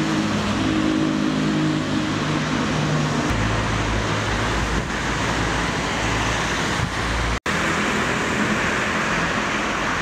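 An engine running steadily with a low hum, over the hiss of traffic on a wet road. The sound cuts out for an instant about seven and a half seconds in.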